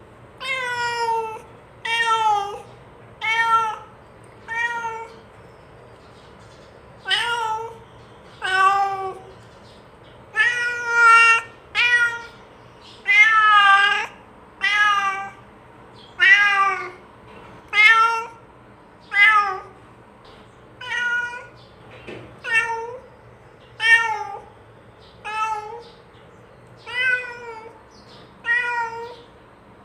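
A domestic cat meowing over and over, about twenty loud calls, one every second or so, each bending in pitch, with a short pause about five seconds in. These are calls to a companion cat, which the uploader takes to be a call to come and eat together.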